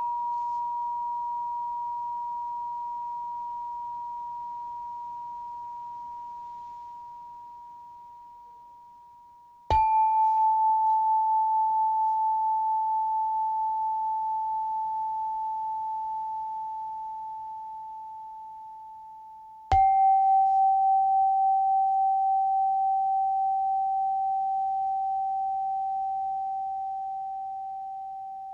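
Pure, bell-like tones, struck three times about ten seconds apart. Each one rings out and slowly fades, and each is a little lower in pitch than the one before. They pace a guided breathing exercise: inhale, exhale, hold.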